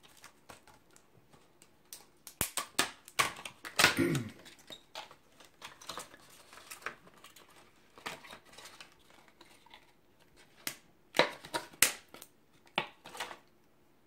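Clear plastic clamshell pack of a RAM kit being pried open and handled: a run of sharp plastic snaps and crackles a couple of seconds in, quieter rustling, then more snaps near the end as the memory sticks come out.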